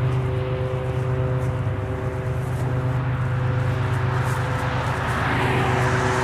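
Diesel locomotive engine running with a steady low drone and a few steady whining tones. A rushing noise swells about five seconds in.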